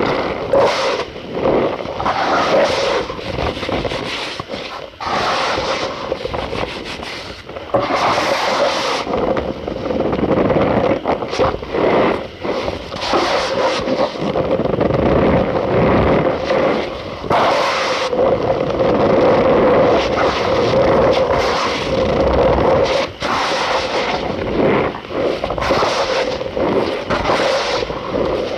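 Cornstarch powder being squeezed and pressed, giving a continuous squeaky crunching with a few brief pauses.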